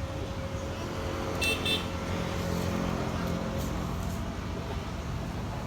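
Steady low engine rumble with a thin steady whine, and two short high chirps about a second and a half in.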